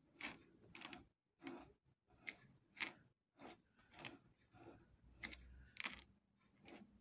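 A 12-needle sewing machine turned over slowly by hand at the handwheel for its first stitch: soft, separate mechanical clicks about one and a half a second as the needle bar and loopers move.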